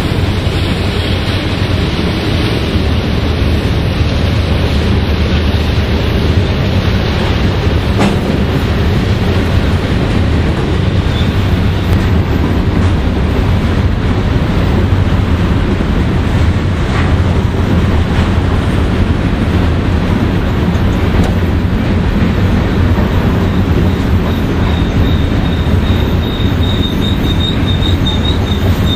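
Freight cars of a long Union Pacific manifest train rolling past downgrade: a loud, steady rumble of steel wheels on rail with a few clicks. A faint high wheel squeal comes in near the end.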